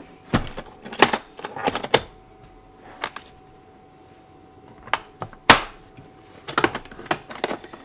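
Hard plastic DeWalt tool case being shut and handled: its lid closing and latches and shell giving a series of irregular sharp clicks and knocks, the loudest about five and a half seconds in.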